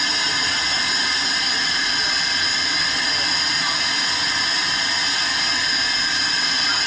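Hyperbaric chamber air hissing steadily and loudly as the chamber is vented during ascent, the pressure being let down.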